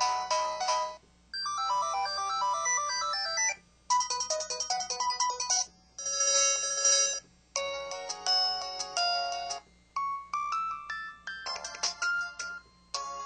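LG-KW9200 mobile phone playing its ringtones one after another: short electronic melodies, each cut off after one to two seconds as the next tone starts.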